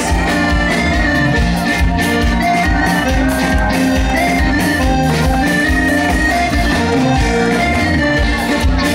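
Live band playing an instrumental passage of an upbeat dance song, with drums, electric guitars and keyboard over a steady beat and no vocals.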